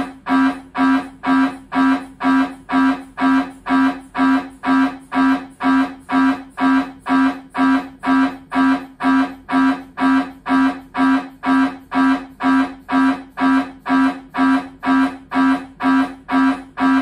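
Siemens Symphony Maestro Class 1.5T MRI scanner running a scan sequence: its gradient coils give a steady, even train of pitched buzzing pulses, a little over two a second.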